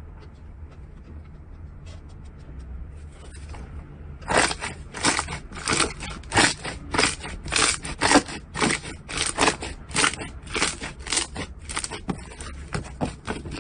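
Slime being squeezed and pressed by hand, giving a run of crunchy, crackling squelches about two to three a second. It starts faintly with scattered clicks and gets much louder about four seconds in.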